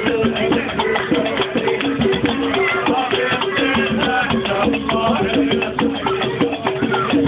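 Algerian folk music from a baroud troupe: a short melodic figure repeating over dense, steady drumming with rattling percussion.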